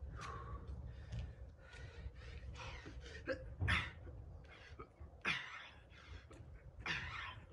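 A man breathing hard from exertion, with about five sharp exhalations a second or so apart as he does push-ups on hex dumbbells.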